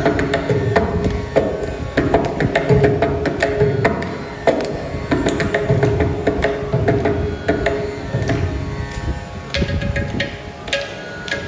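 Mridangam playing a tani avarthanam solo: a dense run of fast strokes on the tuned right head that ring at one steady pitch, mixed with deep bass strokes from the left head.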